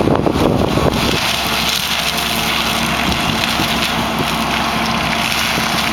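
John Deere 160D LC excavator with an AFE forestry mulcher head running: uneven, gusty noise for about the first second, then a steady drone with a constant low hum.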